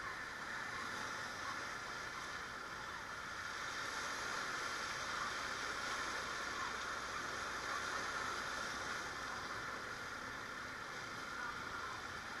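Steady rushing and sloshing of floodwater churned up as a motorcycle and the traffic around it wade through a flooded street.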